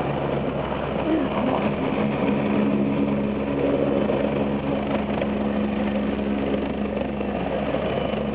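Helicopter hovering low, its rotor and engine running steadily.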